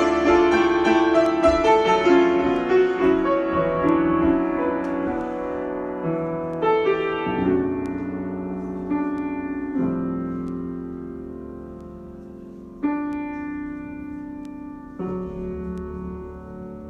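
Solo piano improvisation: a busy run of quick notes that slows into a few held chords, each left to ring and fade, getting gradually quieter.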